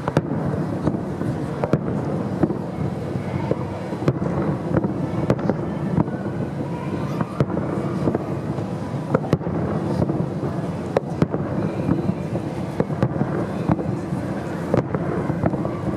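Aerial fireworks display: many sharp bangs at irregular intervals, several a second at times, over a steady low rumble of booming shells.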